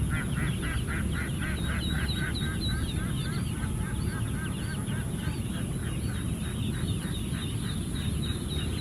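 A flock of ducks quacking: rapid, overlapping calls, about three a second, over steady low background noise.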